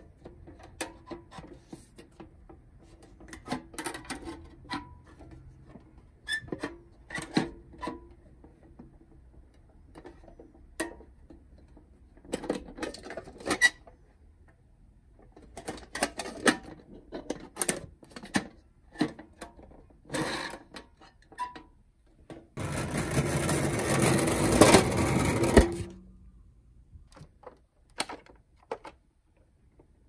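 Clicks, taps and knocks of toys being handled in a cardboard box: a metal first-aid-kit tin's latch and hinged lid, and a plastic toy ambulance. About 23 seconds in, a loud rough noise lasts about three seconds.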